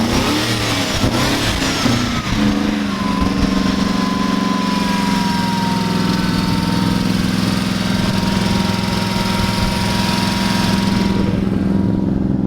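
Ford 4.6 V8 engine running rough, its speed wavering for the first few seconds and then held steady, with a thin steady whine over it from about three seconds in until near the end. The engine is failing from a blown head gasket, with coolant pouring out of the exhaust and some cylinders down.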